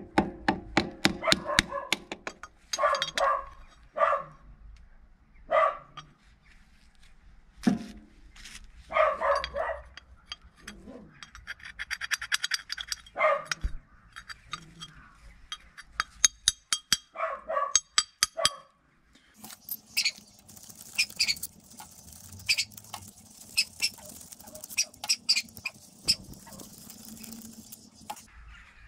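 Metal tools and engine parts clinking and clattering as a Yamaha YZF-R1 engine is taken apart. Short, loud calls sound about ten times in the first two thirds, and a steady hiss comes in for roughly the last third.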